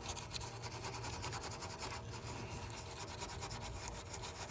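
Rapid back-and-forth scrubbing on a freshly soldered wire joint, cleaning it with alcohol.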